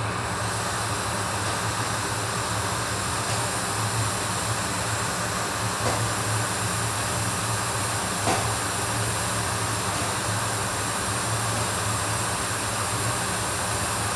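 Hot air rework station blowing steadily over a laptop logic board: an even hiss of air over a constant low hum, with a couple of faint ticks midway.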